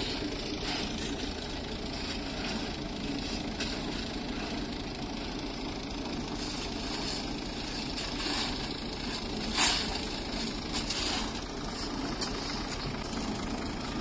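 Engine of heavy construction machinery running at a steady idle, with scattered sharp clicks and one louder knock a little past the middle.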